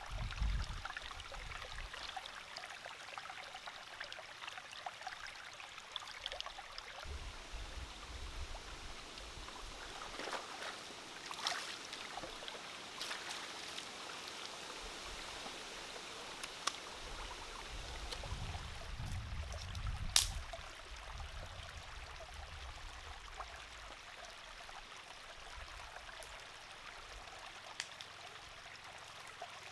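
Shallow rocky stream running steadily, with scattered small splashes and clicks as hands wash vegetables and pour water at the water's edge; one sharp click stands out about two-thirds of the way through.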